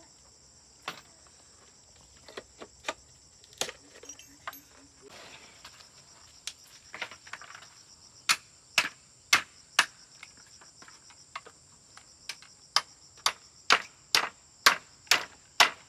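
Sharp knocks, scattered at first, then coming about twice a second through the second half, over a steady high-pitched insect buzz.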